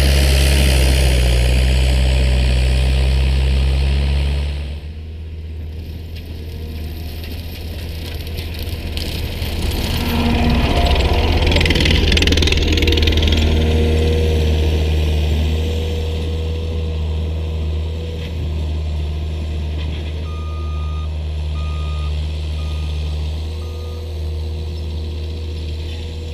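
Caterpillar 297C compact track loader's diesel engine running under load with its front hydraulic bush hog mower. It is loud as it passes close by, drops off sharply about five seconds in, and swells again with a rushing cut around ten to thirteen seconds in. From about twenty seconds in, short repeated beeps of its backup alarm sound as it reverses.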